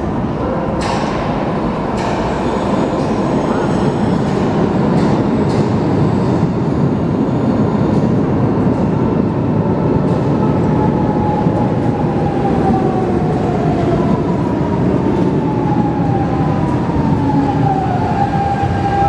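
Three-car Lisbon Metro train running into the station and slowing to a stop: a steady rumble of wheels on rail, with a couple of sharp clicks in the first two seconds. A whine falls in pitch as the train slows and settles into a steady tone near the end.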